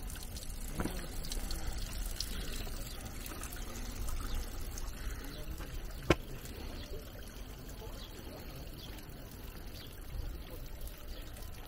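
Spring water pouring from a pipe into a stone trough, a steady trickle and splash. A single sharp click about six seconds in.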